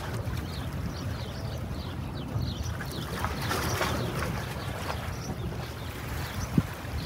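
Harbour ambience: a steady low rumble, with many short high chirps from birds throughout and a single sharp knock near the end.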